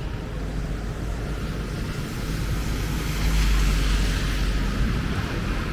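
Heavy rain hissing steadily on a city street, with a vehicle passing on the wet road: a rumble and tyre spray that swell about three seconds in and fade near the end.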